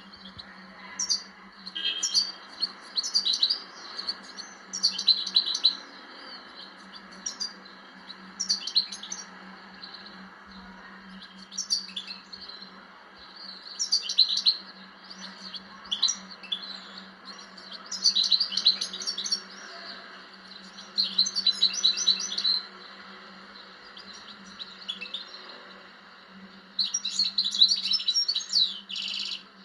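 Marrakchi-type European goldfinch singing: bursts of fast, twittering song phrases broken by short pauses, about a dozen in all. A steady low hum runs underneath.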